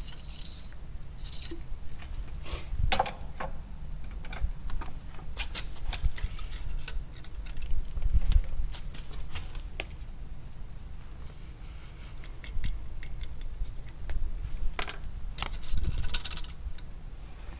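Close handling noise: scattered clicks, taps and cloth rustle as the camera is moved about on its stand, with a few louder knocks about three, eight and sixteen seconds in.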